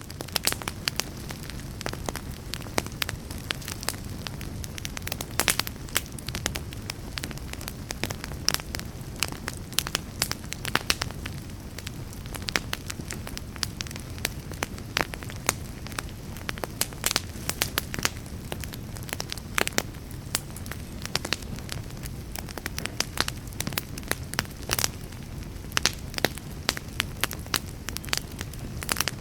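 Fire burning in a fireplace: a steady low rumble of flames with frequent, irregular sharp crackles and pops.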